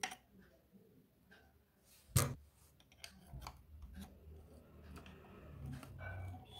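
Small screwdriver scraping and clicking against the metal shuttle hook and race of a sewing machine while picking out packed thread lint. A sharp click about two seconds in is the loudest, with faint scattered scrapes and ticks after it.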